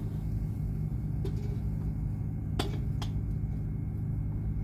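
Steady low machine hum, like a running engine or generator, with a few sharp clicks near the middle.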